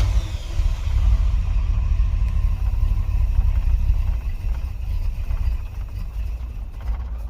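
Cold Gen 1 305 small-block Chevy V8 running just after catching, with a low, uneven rumble that weakens over the last few seconds and dies near the end: the engine stalling from its hard-start and stalling problem.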